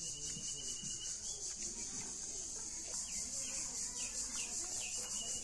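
Steady high-pitched insect chorus, trilling in rapid even pulses, with a few faint short chirps over it.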